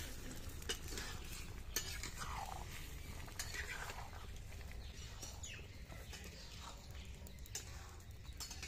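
Long metal spatula stirring fish curry with potatoes in an iron kadai, scraping against the pan with a few sharp clinks.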